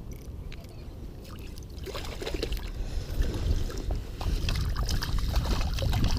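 Water splashing and sloshing, irregular and growing louder from about two seconds in, as a hooked smallmouth bass thrashes at the surface while being landed. A steady low rumble of wind on the microphone runs underneath.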